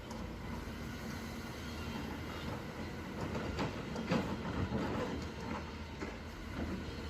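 Hyundai excavator's diesel engine running steadily, with clattering and scraping of stones and soil loudest a few seconds in as the bucket loads the truck.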